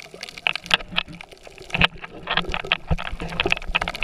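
Underwater sound picked up by a submerged camera: irregular crackling and bubbly pops, closely spaced and uneven, over a low steady hum.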